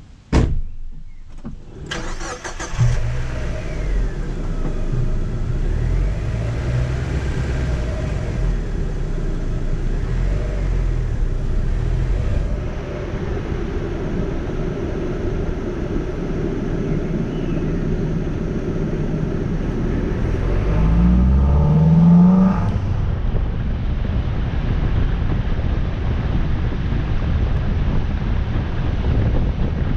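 Mazda MX-5 NB's four-cylinder engine, fitted with a K&N intake, starting up about two seconds in after a sharp knock, then running as the car drives off. Its pitch rises under acceleration around twenty seconds in, then drops abruptly.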